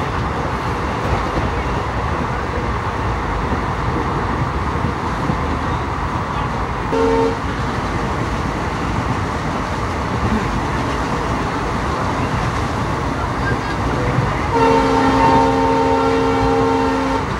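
ICF passenger coach running at about 110 km/h, a steady rumble of wheels on rail heard from inside the coach. The locomotive's horn gives a short toot about seven seconds in, then a longer blast of about two and a half seconds near the end.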